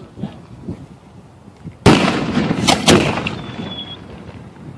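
Aerial fireworks shells going off at close range. One sharp bang comes about two seconds in, then two more in quick succession a second later, each echoing away slowly.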